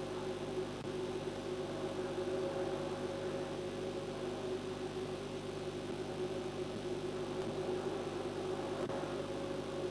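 Steady machine hum with several fixed tones over a hiss, unchanging throughout; no bird calls.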